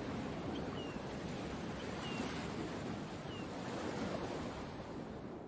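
Sea surf washing in a steady rush, with a few short, faint high chirps that glide downward.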